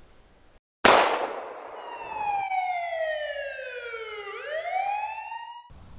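Film title sound effect: after a brief silence, a sudden loud impact hit, then a siren-like layered tone that slides down in pitch for about three seconds, sweeps back up, and cuts off abruptly.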